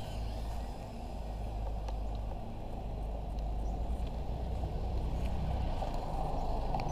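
Steady low outdoor rumble with a hiss over it, much like wind on the microphone; the tiny drone's motors are not clearly heard above it.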